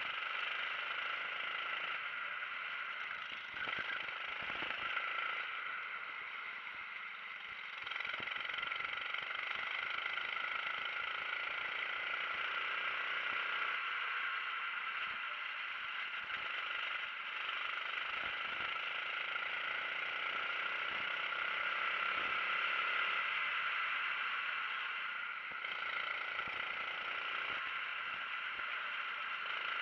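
Racing kart engine running hard at speed, with wind rush and chassis rattle. The sound falls off briefly around four to seven seconds in and again near twenty-five seconds, then comes back up.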